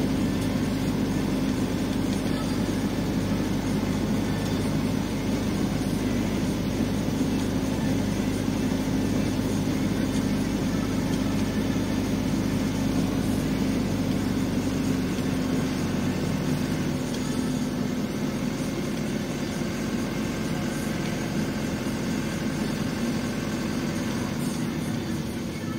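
PAZ-320414-05 Vektor city bus engine running steadily with road noise as the bus drives, heard from the driver's cab. About two-thirds of the way through, the engine note eases off and drops lower.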